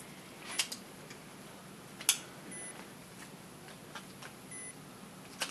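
Quiet room tone with a few sharp clicks and knocks from plastic driver-module parts and a screwdriver being handled, the loudest about two seconds in. Short faint high beeps sound about every two seconds.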